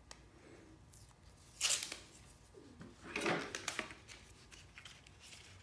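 A roll of masking tape being handled and fitted onto a plastic hand masker: two short rasps of tape peeling off the roll, about one and a half and three seconds in, with a few light clicks and knocks between.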